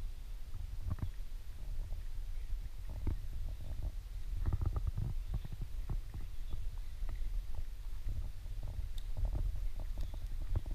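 Low rumble with irregular soft knocks: handling and footstep noise on a hand-held camera's microphone as it is carried around. The knocks come thickest about four to five seconds in.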